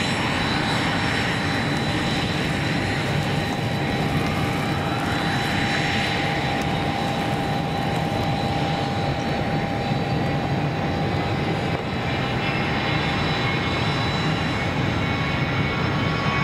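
Gulfstream G550 business jet's twin Rolls-Royce BR710 turbofans running loud and steady, a steady high whine over a rushing noise. In the first several seconds the noise sweeps up and down in pitch as the jet moves.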